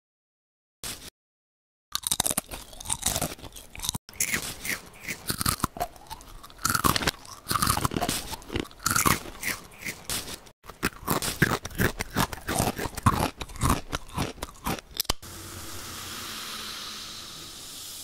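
Close-miked chewing of crunchy snacks: a quick run of crisp crunches and bites that starts about two seconds in. Near the end the crunching gives way to a steady hiss.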